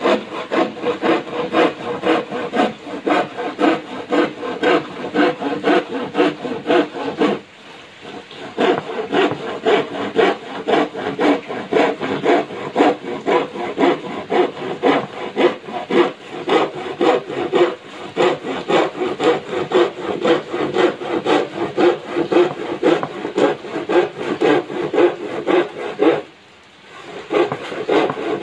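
Handsaw cutting a wooden board in quick, even back-and-forth strokes, with two brief pauses, one about seven seconds in and one near the end.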